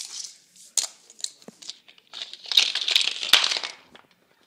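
Small plastic toy cars and track pieces being handled: a few sharp clicks, then about a second and a half of dense rattling and rustling starting about two seconds in.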